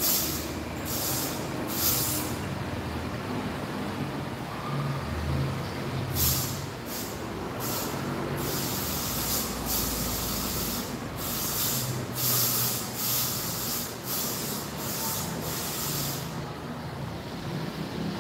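Aerosol insect spray can hissing in a series of bursts: three short sprays at the start, then a run of sprays from about six seconds in, the longest lasting about two seconds.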